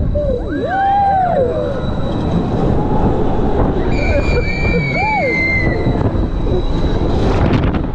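Roller coaster running on its track, a steady rumble with high gliding squeals over it, strongest near the start and again around the middle.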